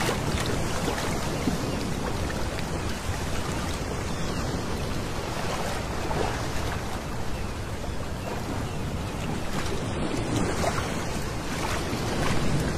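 Small sea waves breaking and washing up over a pebble beach: a steady wash of surf that rises and falls gently and gets a little louder near the end.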